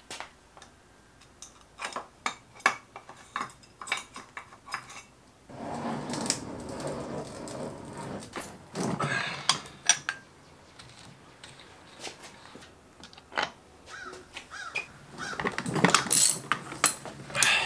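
Metal parts and hand tools clinking and clattering against the cast-aluminium case of a Honda B-series transmission as it is worked on by hand: scattered sharp clicks, a denser stretch of handling noise between about six and ten seconds in, and louder clanks near the end.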